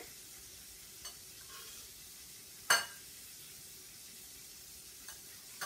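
Knife tapping and scraping against a glass bowl as chopped green onions are pushed off the blade. A few light clicks, with one sharp clink a little under three seconds in, over a steady faint hiss.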